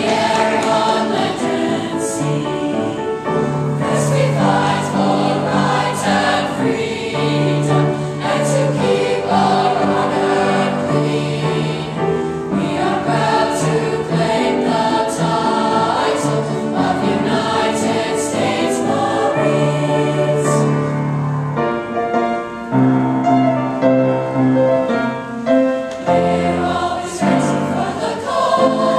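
A middle-school mixed choir of boys and girls singing together under a conductor, holding notes that change every second or so.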